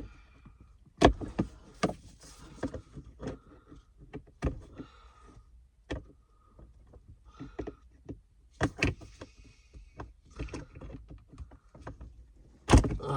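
Irregular clicks, knocks and short scrapes of hands and a tool on a car's plastic center console as small locking rings are worked loose.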